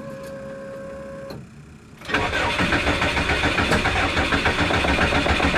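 An electric fuel pump hums steadily for about a second as it primes. About two seconds in, the Subaru Impreza's starter cranks the engine over in a fast, even rhythm without it starting: a no-start that the owner is chasing through the ECU's cranking fuel settings.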